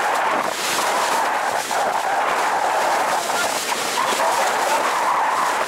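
Steady rush of wind and water aboard a sailing yacht under way.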